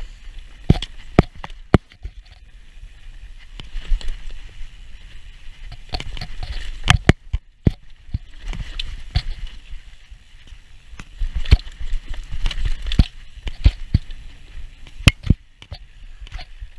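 Mountain bike riding fast down a dirt trail: tyres rolling over the dirt under a steady hiss, with frequent sharp knocks and rattles from the bike over bumps and drops.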